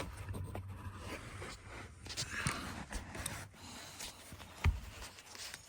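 Faint rustling and scattered small clicks of hands and a tool working around the seat, with one sharper knock about three-quarters of the way through.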